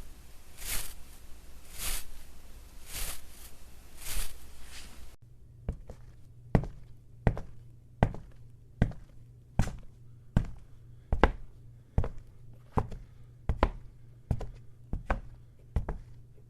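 A run of soft, noisy strokes about one a second, cut off suddenly about five seconds in by a different effect: sharp knocks repeating at about one every three-quarters of a second over a steady low hum.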